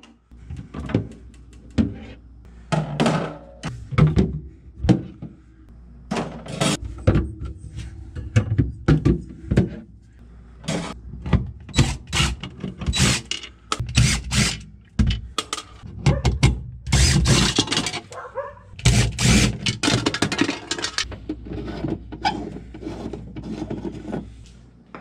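Repeated knocks and clatter of plastic and wire refrigerator racks and drawer holders being pulled out, with a DeWalt cordless impact driver running on a screw in short bursts.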